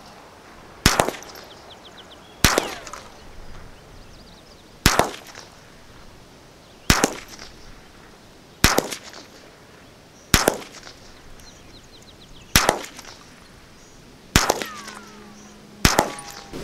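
Ruger 10/22 semi-automatic .22 LR rifle firing nine single shots, one every one and a half to two and a half seconds, each a sharp crack with a short echo: part of a ten-round group fired from its rotary magazine.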